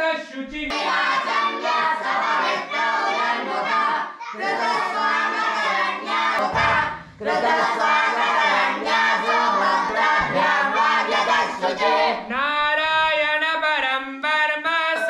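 A group of voices chanting in unison, recitation of the kind taught to students in a temple class. Near the end a single voice carries on alone, as a leader giving the next line.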